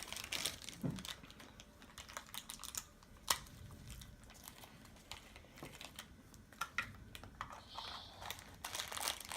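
Small plastic toys and packaging being handled: scattered light clicks, taps and crinkles, with one sharper click about three seconds in.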